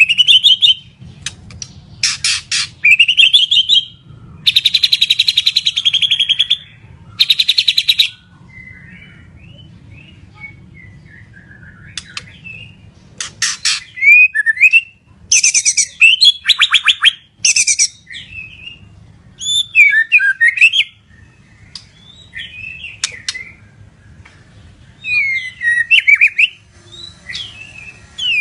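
White-rumped shama (murai batu, Medan type) singing: fast rattling trills, a few held for about two seconds, alternating with shorter whistled and warbling phrases that slide up and down in pitch.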